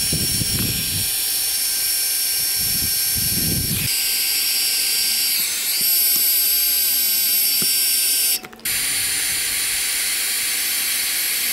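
Milwaukee heat gun running, its fan blowing a steady rush of hot air with a high whine, shrinking the heat-shrink on crimped butt connectors. The sound cuts out for a moment about eight seconds in, then carries on.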